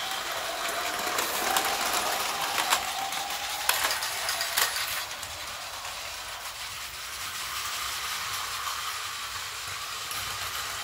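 Plarail battery-powered toy train set running: a small motor's steady whir and the rattle of plastic parts, with four sharp clicks in the first five seconds, after which it runs quieter.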